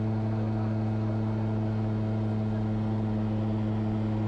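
Engine and pusher propeller of an Edra Super Petrel 100 amphibian, a Rotax 912 ULS flat-four, droning steadily in level cruise, heard inside the cockpit.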